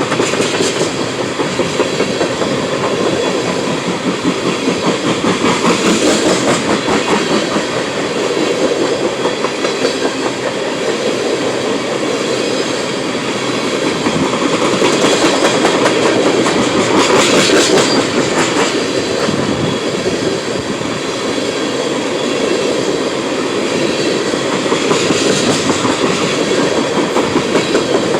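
Freight train of tank cars rolling past, steel wheels clacking over the rail joints above a steady rumble that swells louder a few times.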